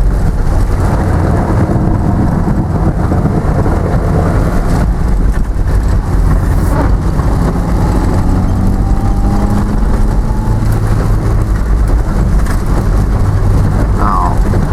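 Car driving: a steady low engine and road drone.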